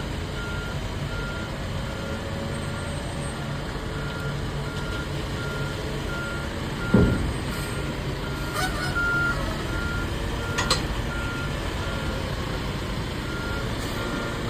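A heavy vehicle's reversing alarm beeping at an even pace over the steady low rumble of a diesel engine, with one loud knock about halfway through and a couple of sharp clicks after it.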